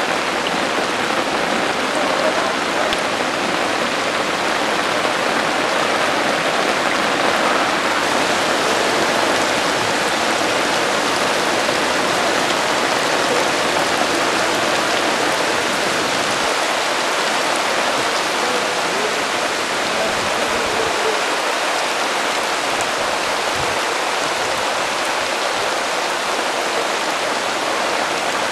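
Rain falling steadily onto moving floodwater: an even, unbroken hiss.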